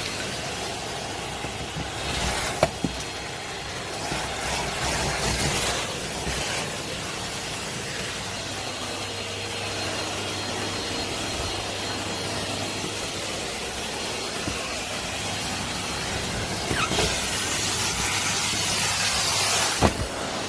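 Henry cylinder vacuum cleaner running steadily, with a constant rushing hiss of suction and a few sharp knocks. The hiss gets louder near the end.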